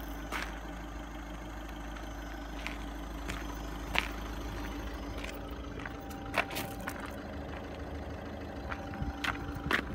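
Audi A1 2.0 TDI's four-cylinder diesel engine idling steadily, with a few short sharp crunches of footsteps on gravel.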